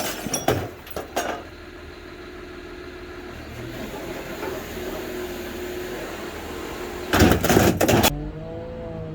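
Wheel loader's diesel engine running while its bucket smashes an old washing machine: a few sharp metal clanks in the first second or so, the engine running steadily, then a loud burst of crashing about seven seconds in.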